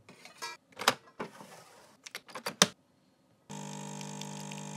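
Clicks and knocks as a ceramic mug is set under an espresso machine's spout, then, about three and a half seconds in, the machine's pump starts a steady hum as an espresso shot pours.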